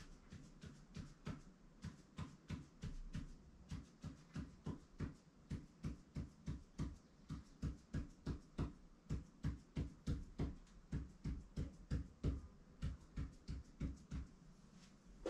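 Pen drawing short tally marks on paper laid on a hard surface: a quick tap-and-scratch for each stroke, about three to four a second in a steady rhythm, stopping shortly before the end.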